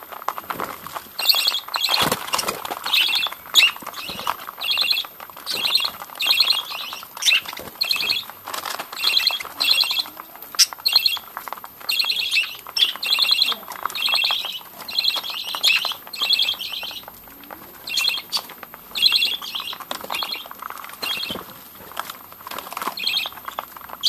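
A flock of budgerigars chattering as they feed, with a steady run of short, repeated chirping calls about once or twice a second over a busy background warble. Small clicks from beaks pecking at seed run through it.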